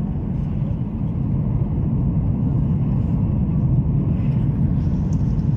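Steady low rumble of a jet airliner's engines and airflow heard inside the cabin, on final approach with the wing flaps extended.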